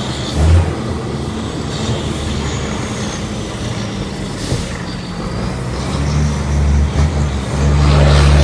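Iveco 380 truck's diesel engine running loud, a deep steady drone that gets louder about seven and a half seconds in.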